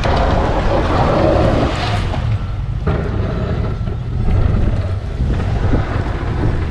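Wind buffeting the microphone during a blizzard, heaviest in the first two seconds, over the engine of a snowplow truck.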